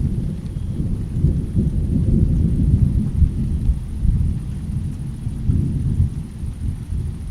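Thunder rumbling, a long low roll that swells in the middle and eases off near the end.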